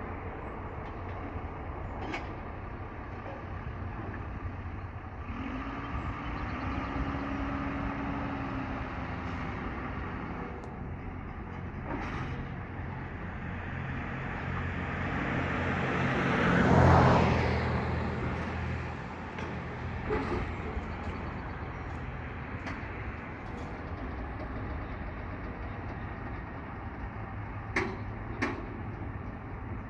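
Steady engine rumble, with a vehicle passing close: it swells to its loudest a little past halfway and fades away. Two sharp clicks come near the end.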